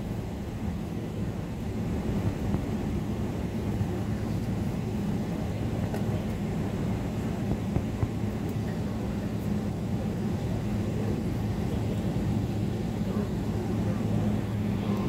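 Boeing 777 cabin noise while taxiing: the engines' steady low drone at taxi power over the rumble of the ground roll, heard from a window seat over the wing.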